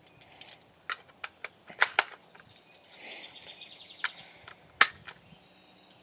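5.56 cartridges being pressed one at a time into a polymer PMag rifle magazine: a string of sharp, irregular clicks. There is a short rustle about three seconds in.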